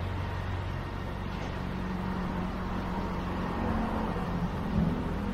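Steady low hum of an idling vehicle engine over street traffic noise, with one brief knock near the end.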